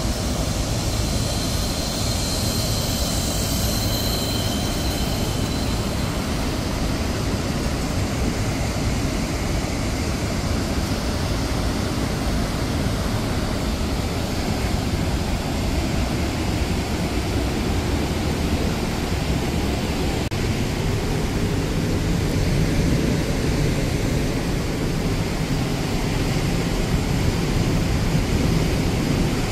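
Large waterfall and gorge rapids in heavy flow, giving a steady, deep rush of falling water.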